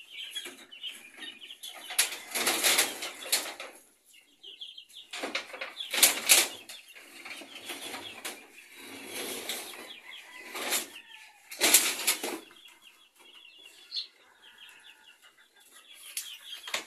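Wooden formwork boards being pried loose and handled, giving several rough scraping and knocking bursts. Chickens cluck in the background between them.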